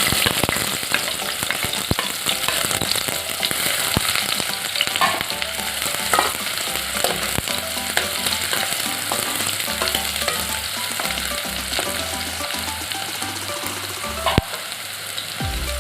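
Chopped onion sizzling steadily as it fries in hot oil in a pot, stirred now and then, with small clicks and one sharper knock near the end.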